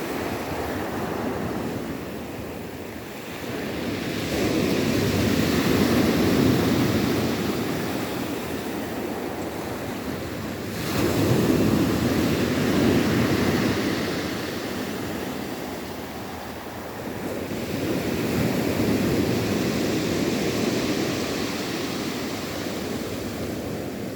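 Rough sea: waves surging in and breaking, the surf swelling and falling back in slow surges about every six to seven seconds.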